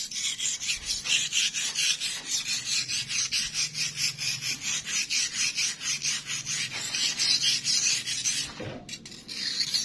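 Knife blade being sharpened on a wet whetstone: fast, even back-and-forth scraping strokes, about four a second, with a short break near the end.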